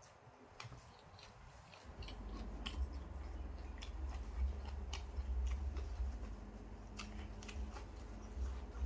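Close-up sounds of a person chewing and eating noodle soup, with scattered small sharp clicks. A low rumble comes in about two seconds in and stays as the loudest sound.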